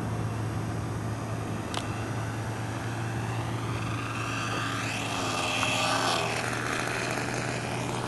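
Radio-controlled model airplane's engine whining as the plane flies low past on its landing approach. The whine grows louder about halfway through, then drops in pitch as the plane goes by.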